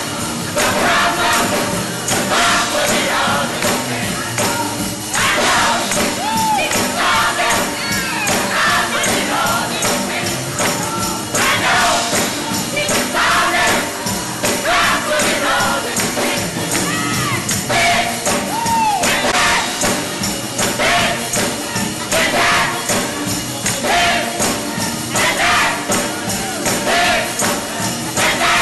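Gospel music in church: a choir singing over a steady tambourine beat, with the voices of the congregation mixed in.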